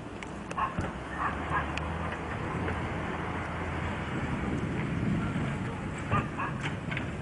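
A dog yipping a few times, short sharp calls in pairs about a second in and again near the end, over steady background noise.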